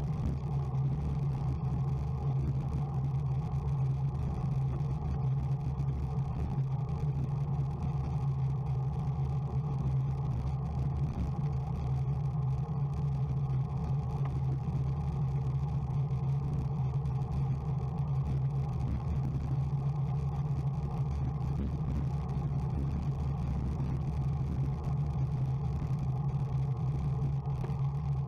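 Steady, unchanging drone of road and wind noise from a vehicle travelling at a constant speed of about 46 km/h, dominated by a low hum.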